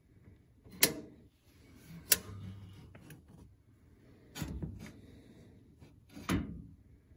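Sharp knocks and clicks of sheet-metal parts and fittings being handled inside a gas oven's compartment: about five separate hits, the loudest two in the first couple of seconds.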